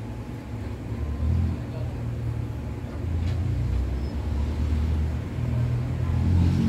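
Crane engine running, a low steady hum that swells about a second in and grows louder near the end as it works.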